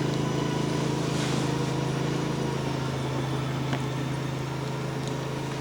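A small engine running steadily, a low even hum that slowly fades a little toward the end.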